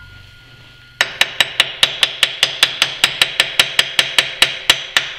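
A wrench tightening a jaw of the Rockford lathe's four-jaw chuck: rapid, even clicking about five times a second over a steady hiss, starting about a second in.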